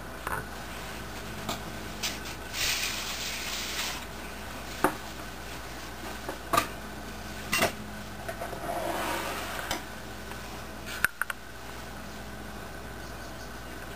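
Black-tailed deer eating apples from plastic saucers on the ground: scattered sharp knocks and clacks, with two short stretches of rustling, over a steady background hum.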